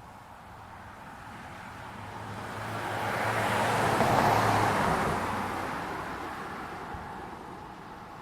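A car passing by on the road: tyre and engine noise swells to its loudest about four seconds in, then fades away.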